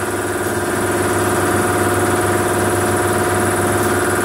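Electric motor of a tyre-changing machine running, a steady even hum, as the turntable turns the wheel to work the tyre bead off the rim.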